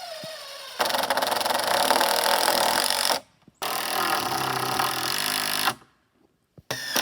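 Power driver running in three bursts of about two seconds each, with a fast rattling pulse, while the supports of a wooden platform frame are fastened.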